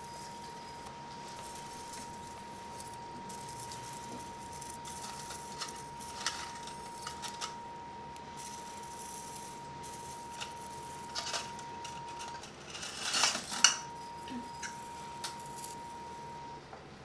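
Electrosurgical unit giving a steady high electronic tone while the cautery pen is activated for dissection; the tone stops briefly about three-quarters of the way in and again near the end. Light clicks and clinks of metal surgical instruments come through, loudest in a short clatter about thirteen seconds in.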